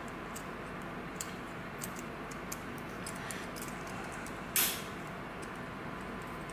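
Small metal hardware handled by hand: faint light clicks of nuts and fittings as a nut is threaded on, with one brief louder rasp about four and a half seconds in, over a steady room hum.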